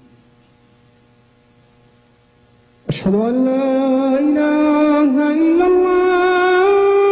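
Male muezzin's voice opening the Islamic call to prayer (adhan): after a few seconds of low hum there is a click, then one long held, melismatic note that climbs in steps in pitch.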